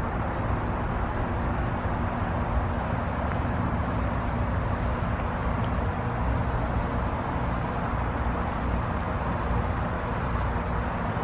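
Car driving: a steady mix of engine hum and road noise that holds even throughout.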